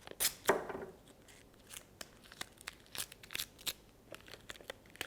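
Paper and sticky tape being handled while wrapping a homemade paper drum: irregular crinkles, crackles and short tearing sounds.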